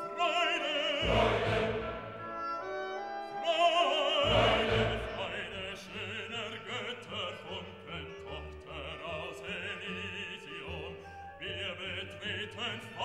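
Background music: an operatic voice singing with vibrato over an orchestra.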